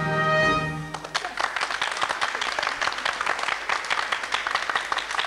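A song's final chord held by the band, ending about a second in, followed by audience applause, a dense steady clapping.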